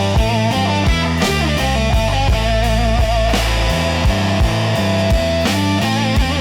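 Instrumental blues music: an electric guitar plays a bending lead line over a bass line and a steady drum beat.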